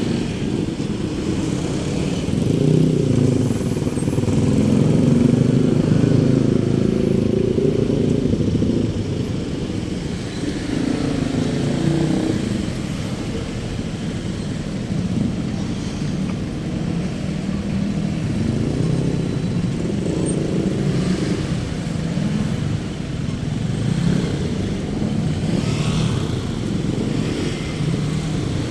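Street traffic, with motorcycles and cars running past in a continuous low rumble.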